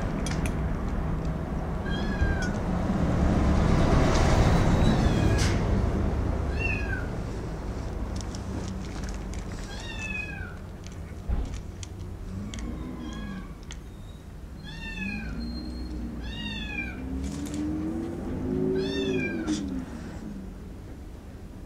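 Cat meowing: short, high-pitched mews that fall in pitch, repeated every second or few, with lower, drawn-out rising-and-falling meows in the second half.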